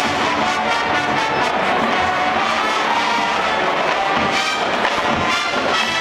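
Marching band playing brass-heavy music, full horn sections over sousaphones and marching drums, with a couple of heavy low hits in the second half.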